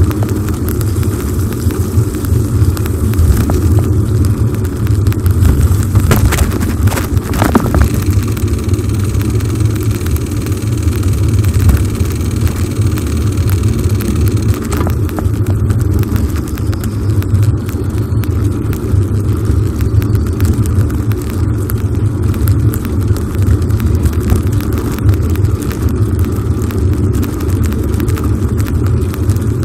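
Wind buffeting the microphone on a moving bicycle, a loud steady low rumble. A few sharp clicks come about six to eight seconds in.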